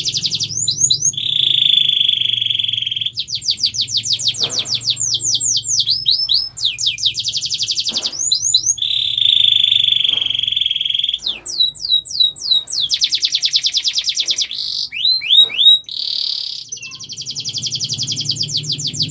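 Domestic canary singing continuously. Rapid trills of fast, repeated downward-sweeping notes alternate with steady, buzzing rolls held for a second or two.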